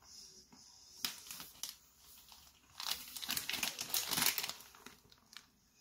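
Plastic wrapper of a Kit Kat block crinkling as it is handled, in a short stretch about a second in and a longer, louder one from about three seconds in.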